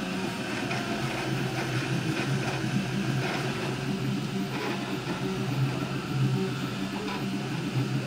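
3D printer running a print, its stepper motors whining in short low tones that jump in pitch every fraction of a second as the print head and bed move.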